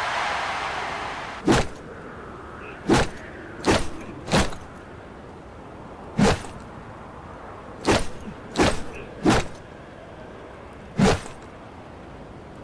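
Baseball bat strikes: nine sharp, short cracks at uneven intervals, each ringing briefly, after a fading rush of noise at the start.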